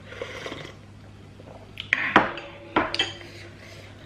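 Person slurping vegetable soup from a bowl held to the lips. Then, about two and three seconds in, sharp clinks and knocks of the ceramic bowl and spoon being set down on the table.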